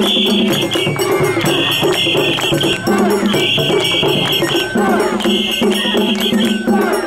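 Japanese festival hayashi music played live: a clanging metal hand gong and drums, with other instruments, in a pattern that repeats every couple of seconds.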